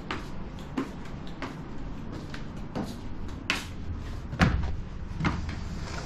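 Light knocks and clicks about every 0.7 s, like footsteps across a wooden floor, then heavy curtains being pushed open by hand, with a heavier thump about four and a half seconds in.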